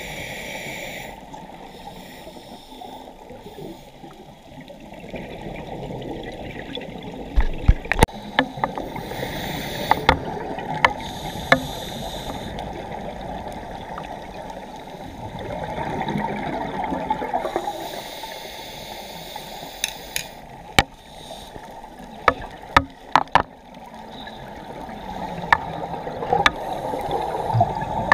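Underwater sound through a camera's waterproof housing: a scuba diver's breathing, in swells every few seconds of hiss and bubbling exhaled air. Sharp clicks and knocks are scattered throughout.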